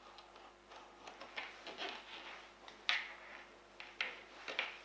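Small kitchen knife slitting a vanilla pod lengthwise on a plastic cutting board: faint scraping of the blade, with a few sharper ticks of the knife against the board about three and four seconds in.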